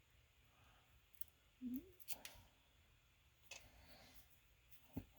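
Faint, scattered small clicks of pins and parts from a euro cylinder lock being handled during disassembly, about five in all. There is a brief low murmur about two seconds in.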